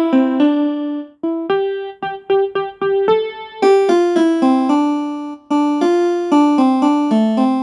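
Relaxing ringtone melody played on a keyboard: a quick run of single struck notes, each ringing briefly. It pauses for a moment about a second in and again about halfway through, and sounds fuller and brighter from about three and a half seconds in.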